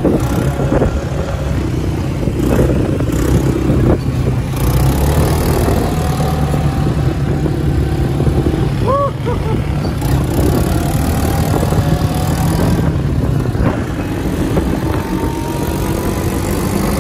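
Quad bike engines running steadily as the ATVs ride along a dirt road.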